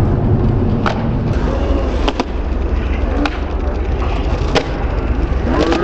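Skateboard wheels rolling on concrete with a steady low rumble. Several sharp clacks of the board's tail popping and the wheels landing break through it.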